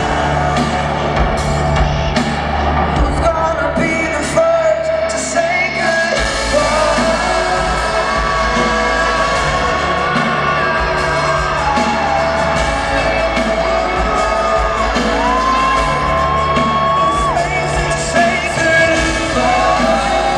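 Pop boy band playing live in a stadium, heard from the audience through the PA: male lead vocals with long held notes over the band, with fans screaming along.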